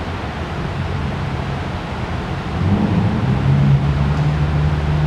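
Citroën Saxo 1.6 8V four-cylinder petrol engine running through its exhaust, stepping up to a higher, louder steady speed about two and a half seconds in, in a tiled wash bay.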